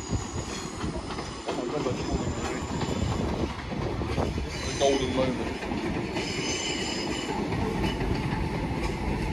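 Northern multiple-unit passenger train running past, a steady rumble of wheels on rail, with brief high-pitched wheel squeal twice around the middle.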